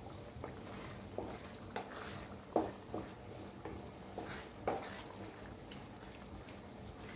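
Wooden spatula stirring a tomato, onion and pepper sauce cooking in a frying pan, with short light knocks against the pan at irregular moments over the soft sizzle of the sauce.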